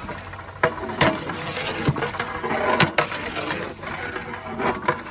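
A long metal spatula stirring raw mutton pieces in oil and masala in a large aluminium cooking pot, with irregular scrapes and knocks of metal against the pot.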